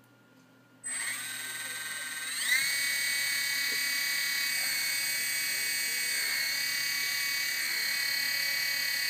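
Blade mSR micro RC helicopter's electric motor and rotor gearing starting up about a second in with a high whine. The whine climbs in pitch a moment later as the rotor spins up, then holds steady.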